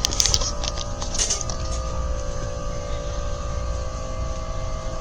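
Steady electrical hum with a low rumble, the background drone of a big store's building systems, with a few brief rustling clicks of handling in the first second and a half.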